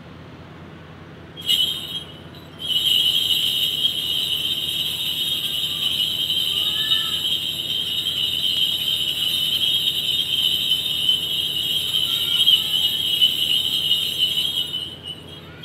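Kagura suzu, the shrine maiden's cluster of small bells on a handle, shaken in the bell purification rite (suzu no oharai). A brief shake about a second and a half in, then a long unbroken jingling that fades out near the end.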